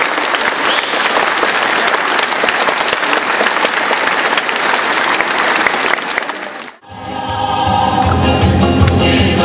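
Audience applauding, which breaks off abruptly about seven seconds in; music with group singing and a strong bass then starts.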